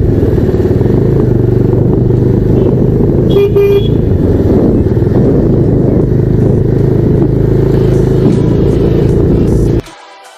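Motorcycle engine running at riding speed under heavy wind rush on the bike-mounted microphone. A horn beeps twice in quick succession about three and a half seconds in, and the engine noise cuts off suddenly near the end.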